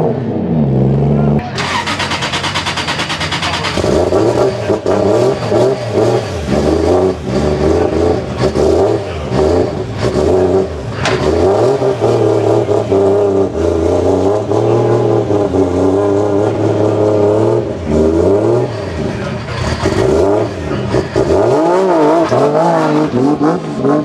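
Drift car engine revving hard, its pitch rising and falling again and again as the car is driven on track. A harsh, dense burst of noise comes about two seconds in.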